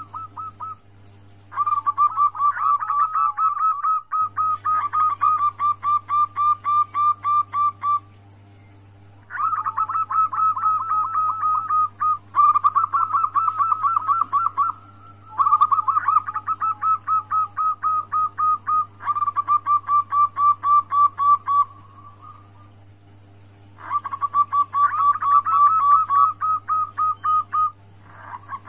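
Female zebra dove (perkutut) calling: rapid runs of short, evenly repeated notes, each run lasting a few seconds with brief pauses between them. A faint, high, regular ticking runs beneath.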